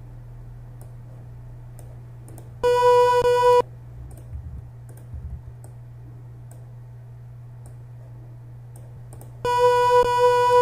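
Faint mouse clicks over a steady low electrical hum. About two and a half seconds in, a sampled flute note plays back for about a second, and near the end the same note starts again and is held.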